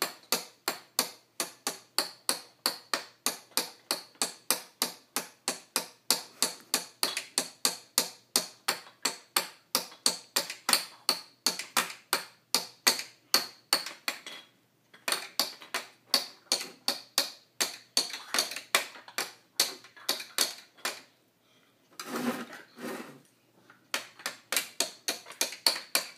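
Small plastic toy mallet tapping lightly and steadily on the plastic ice blocks of a break-the-ice tabletop game, about three sharp taps a second, with a couple of short pauses and a duller clattering burst near the end.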